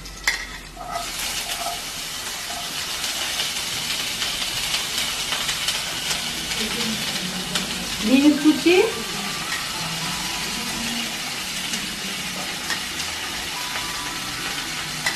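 Chopped carrots, green beans and capsicum sizzling steadily in hot ghee in a kadai as they are tipped in from a steel plate, with a few light clicks of pieces and plate. A brief louder rising sound comes about eight seconds in.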